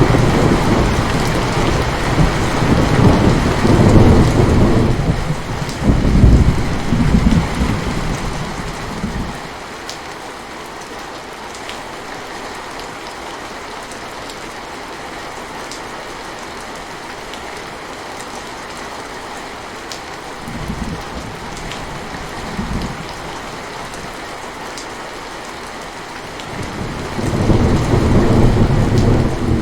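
Steady rain with rolling thunder. There are long low rumbles over the first nine seconds, two short ones midway, and another rumble near the end.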